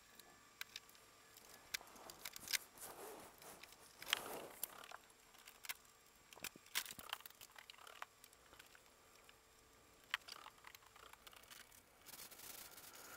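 Faint, scattered clicks, taps and rustles of hands working at wooden kitchen cabinet doors and boxes, over a low steady hum.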